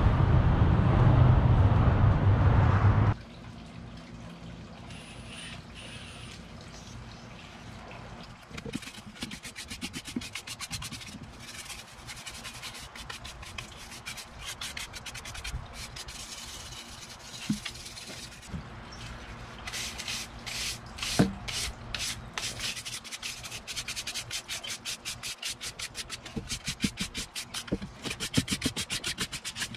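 A stiff plastic-bristled scrub brush scrubbing dry, pitted driftwood in quick back-and-forth strokes, with an occasional knock of the wood on a table. For the first three seconds there is a louder outdoor rumble that cuts off abruptly.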